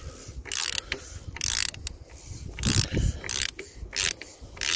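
Hand ratchet clicking in a series of short strokes, roughly two a second, as a 32 mm socket works loose the plastic oil filter housing cap on an EA888 engine.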